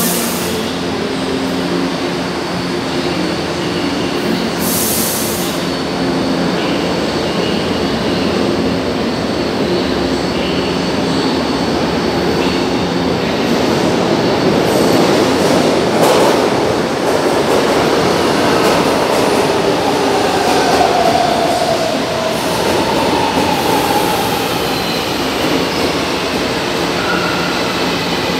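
São Paulo Metro subway trains at a station platform: a steady hum and rumble as one train pulls out, then a louder swell from about halfway as another runs in alongside, with wheel squeal and a whine that falls slightly in pitch.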